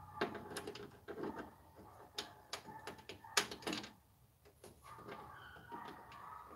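Irregular clicks and knocks of a screwdriver and hands working a screw into a plastic bracket on the back panel of a flat-screen TV, with one sharper knock about three and a half seconds in.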